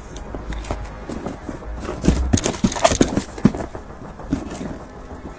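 A series of irregular knocks and thuds, thickest in the middle stretch.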